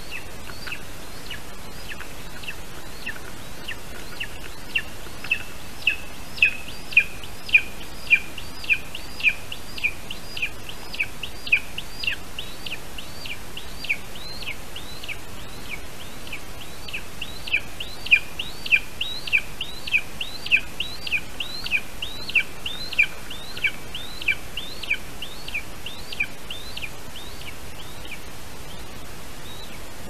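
Lesser spotted eagle chick calling: a long, regular series of short, high yelps, each falling in pitch, about two a second. They are loudest in two runs, one in the first half and one from just past the middle, over a steady hiss.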